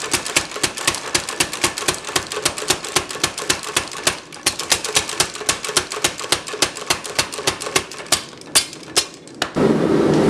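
Power hammer hitting hot bolt steel in a fast, even run of blows, about seven a second, tapering the bolt's end. The blows break off briefly about four seconds in and then thin to a few single strikes near eight seconds. A steady rushing noise takes over near the end.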